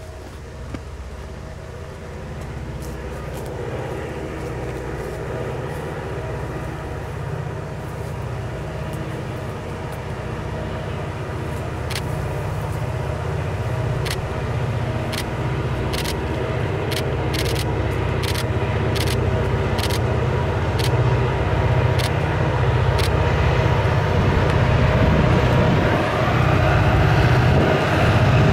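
Diesel freight locomotives approaching, their engine drone growing steadily louder, with a run of sharp clicks in the middle.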